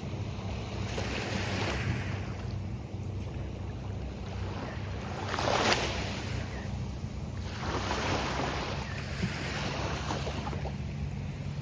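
Gulf of Mexico surf breaking on a sandy beach, each wave washing in and falling back every few seconds. The loudest break comes about halfway through.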